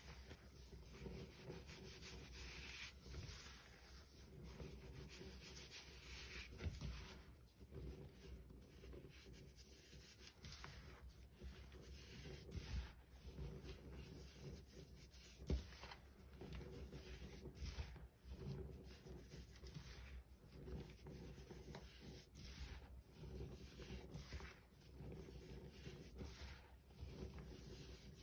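Hands squeezing and crumbling dry baking soda powder: faint, soft, irregular crunching and rubbing, with a few small clicks.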